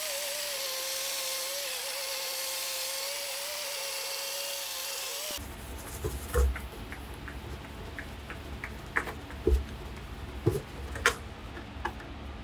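Small handheld power tool running steadily with a slightly wavering whine, working scratches out of a plastic motorcycle fairing panel. It cuts off about five seconds in, and scattered light knocks and taps follow.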